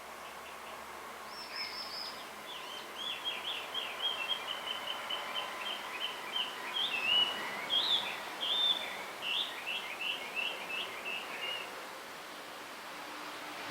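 Male blue rock thrush singing: one long run of quick, varied whistled and warbled notes lasting about ten seconds, the song a male gives to attract a female.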